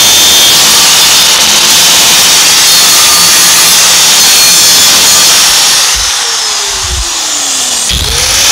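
Angle grinder with a thin cut-off wheel slicing through sheet metal along a fender seam to open the gap for butt welding. About six seconds in it is switched off and winds down with a falling whine, then starts up again near the end.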